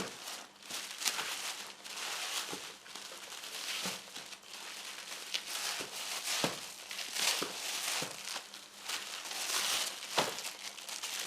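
Packaging for camera accessories being handled and pulled open: continuous crinkling and rustling, with scattered sharp clicks and knocks.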